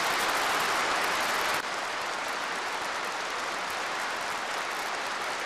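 Large audience applauding, a dense, steady clapping of many hands; it drops slightly in level about one and a half seconds in.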